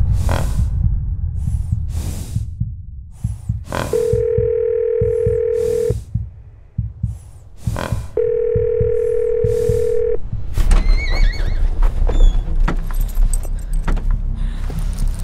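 Telephone ringback tone: two long steady beeps, each about two seconds, about four seconds apart, the call ringing and not yet answered. Under them there are a low rumble and scattered sharp knocks.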